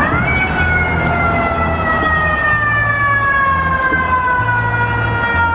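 Fire engine siren wailing: the pitch climbs quickly at the start, then falls slowly and steadily for several seconds as the siren winds down.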